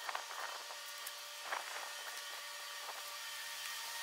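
Square hay bales being handled and set down onto a wooden pallet: a few short rustling thuds, near the start, about a second and a half in, and around three seconds in. A steady mechanical whine with hiss runs underneath.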